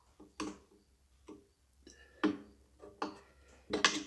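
Intermittent metallic clicks and knocks from a hand wrench working loose the clamp on a tractor battery's positive terminal. The strikes are irregular, and the loudest come about two seconds in and near the end.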